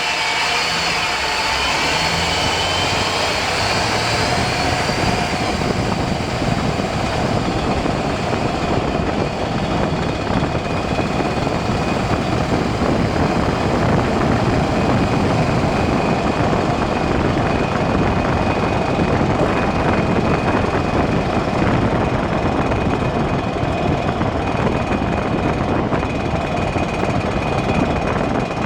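2001 Chevy Silverado driving at highway speed: steady road and wind noise with a constant high whine from the front end, which was traced to a failing front drive shaft between the transfer case and the front differential. Over the first few seconds a higher whine rises in pitch.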